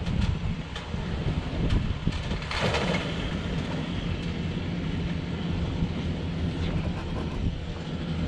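A vehicle engine idling with a steady low hum. A brief hiss about two and a half seconds in.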